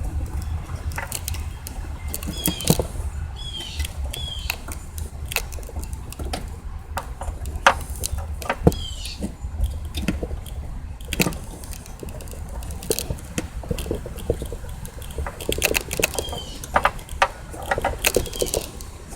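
Irregular clicks and knocks of fuel pump assembly parts being handled and fitted by hand, with a bird's short downward chirp repeating every few seconds over a steady low rumble.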